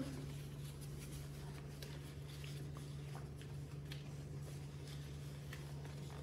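Faint scattered taps and light rubbing of a tissue being wiped over a wooden tabletop, over a steady low hum.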